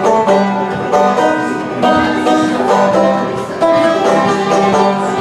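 Bluegrass band music: banjo picking over upright bass, with the fiddle coming in partway through.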